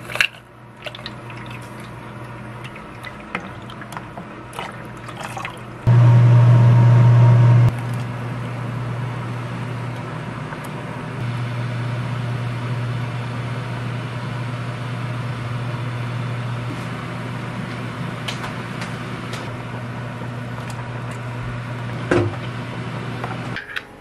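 A pot of maesaengi seaweed soup bubbling on the stove, with water sounds over a steady low hum. The hum turns much louder for a couple of seconds about six seconds in. A few light clinks and taps come through, one sharper near the end.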